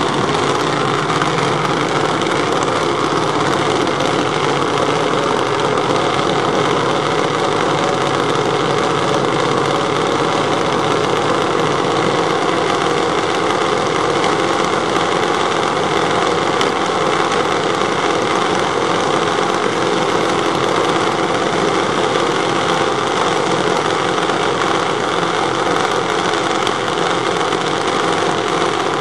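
Junior dragster engines idling steadily at the starting line, with no revving or launch.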